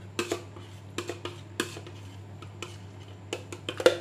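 Scattered light clicks and knocks of a plastic blending beaker and hand-blender shaft being handled as the freshly blended puree is tipped out into a bowl, with a sharper knock near the end. A faint steady low hum runs underneath.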